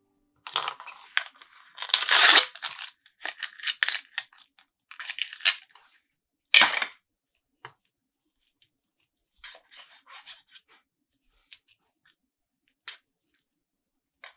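Plastic toy wrapping being torn open and crinkled in a run of rustling bursts, then a few small clicks and taps of plastic pieces being handled.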